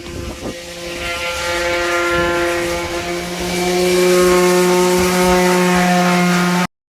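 A motor running at a steady pitch. It grows louder about three seconds in and cuts off suddenly near the end.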